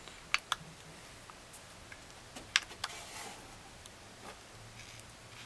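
Light, sharp clicks of small paintball-marker parts being handled as the bolt guide is slid back into an Invert Mini's body: two clicks near the start, two more about two and a half seconds in, then a soft rub.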